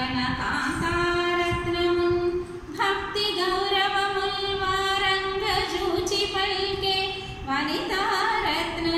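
A woman singing a Telugu verse (padyam) unaccompanied in a slow, drawn-out melody, holding each note for a second or two.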